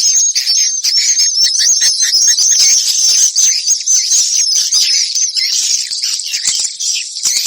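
Swiftlet call track of the kind played to draw swiftlets to a nesting house: a dense, unbroken chorus of rapid, high chirps and twitters.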